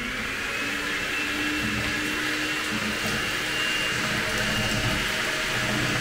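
Electric mixer running steadily, whipping cold cream and cream cheese into a thick cream. Its high motor whine rises a little in the first second, then holds over a dense whirring.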